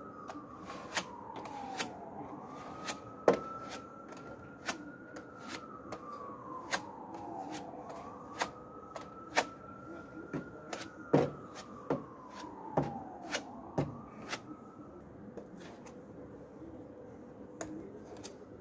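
A plastic spreader scrapes and clicks against the car's bodywork as body filler is worked onto the wing-to-sill joint, in irregular sharp clicks. Behind it a siren wails up and down slowly, three cycles about six seconds apart, and fades out around three-quarters of the way through.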